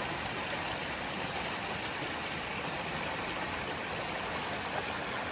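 A mountain stream rushing steadily.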